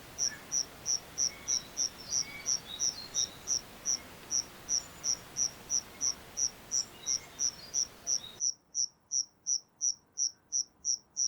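Cricket chirping steadily, about three high chirps a second, over faint background with scattered bird notes. About eight seconds in the background drops away, leaving only the chirping, which then cuts off.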